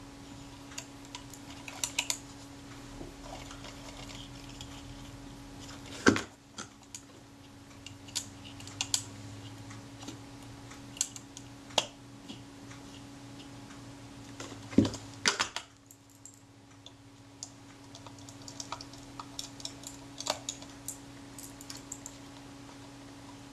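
Small metallic clicks and taps of a screwdriver and small steel parts being worked on a Rolleiflex Automat TLR camera body, refitting the lug that holds the film door. A couple of sharper knocks come about 6 and 15 seconds in.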